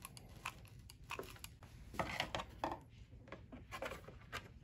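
Faint taps, clicks and rubbing of 3D-printed plastic panels being handled and pressed together, as a floor piece is glued in with a hot glue gun. A denser run of scraping comes about two seconds in.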